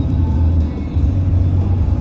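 Background music over a steady low rumble.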